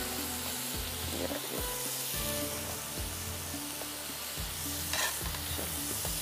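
Steady sizzling from food frying in a hot pan, with a serving spoon scraping and spreading cooked rice across a ceramic platter and a few light knocks of the spoon.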